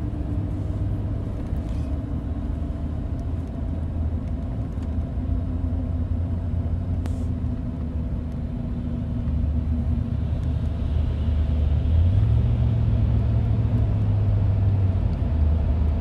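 Engine drone and road noise inside a Ford F-150 pickup's cabin while driving. It grows louder about ten seconds in as the truck enters a road tunnel, and the engine note steps up in pitch for about three seconds near twelve seconds, then drops back.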